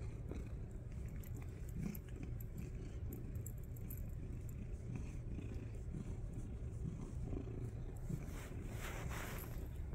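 Domestic cat purring close to the microphone: a steady, continuous low rumble. A brief rustle near the end.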